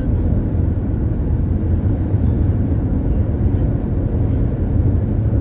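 Steady low rumble of a car driving on the highway, heard from inside the cabin: road and engine noise.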